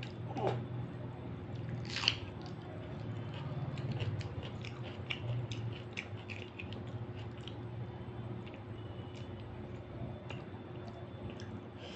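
A person chewing a big mouthful of rice and dal, with wet, squishy mouth clicks and smacks, while fingers mix dal and rice on the plate. A sharp click about two seconds in is the loudest sound.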